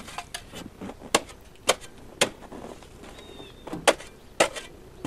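Snow shovel chopping and scraping at packed snow around a truck tire: a run of sharp strikes about every half second, with a pause of a second or so in the middle.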